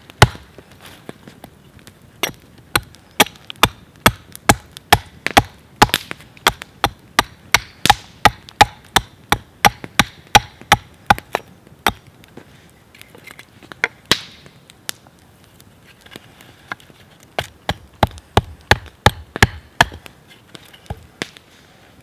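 Carving axe hewing a piece of oak braced on a chopping log: a quick run of sharp chopping strikes, about two a second, with a pause midway and stopping shortly before the end.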